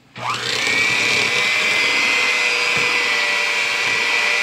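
Handheld electric mixer switched on a moment in, spinning up with a quick rising whine and then running at a steady pitch, its beaters working through stiff butter-and-sugar cookie dough.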